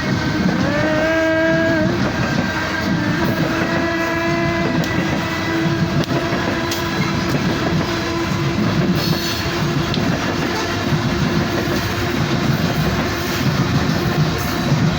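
Loaded coal train rolling by, its steel wheels rumbling and clacking over the rail joints. A locomotive horn sounds about half a second in, sliding up into pitch, then holds more faintly for several seconds.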